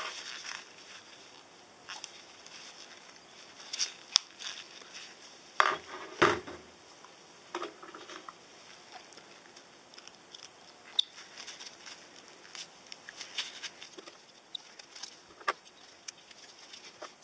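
Gloved hands handling a wire fishing rig and a drilled penny: scattered rustles and small metallic clicks, with a few louder knocks about four and six seconds in.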